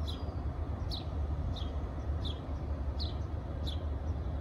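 A bird repeating a short, high call that drops in pitch, about three calls every two seconds, over a steady low rumble.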